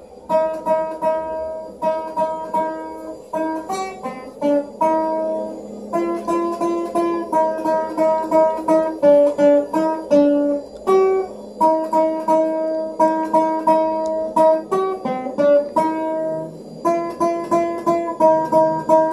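Acoustic guitar played one note at a time, a Christmas melody being practised. The same short phrases come round again and again, with brief pauses between them.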